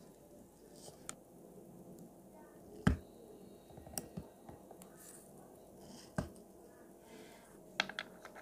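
Small clicks and knocks from taking a leather strap off a wristwatch with a spring bar tool, releasing the spring bars from the case lugs. One sharp knock about three seconds in is the loudest, with lighter clicks around four and six seconds and a quick cluster near the end.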